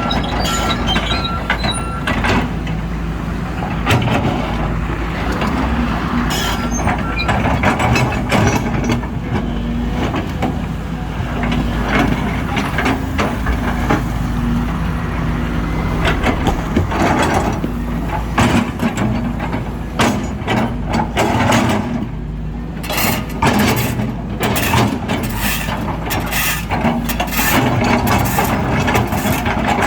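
Volvo EC210 hydraulic excavator's diesel engine running steadily under load, with repeated sharp knocks and clatter of the bucket breaking and scraping up asphalt, coming thicker in the second half.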